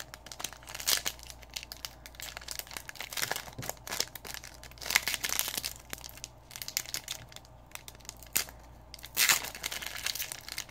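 Plastic foil trading-card pack wrapper being handled, crinkled and torn open, in short irregular crackles with louder bursts about a second in, midway and near the end.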